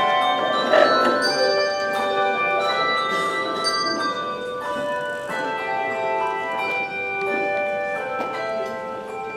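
Handbell choir playing a piece of music: many bells struck one after another, their clear pitched notes ringing on and overlapping.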